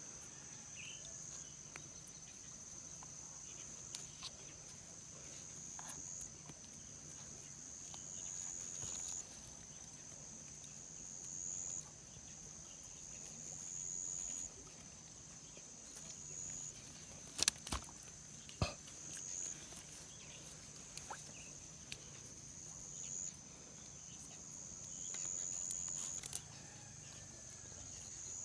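Crickets or other insects trilling in a steady high-pitched chorus that swells every few seconds, with a few sharp clicks or knocks about two-thirds of the way through.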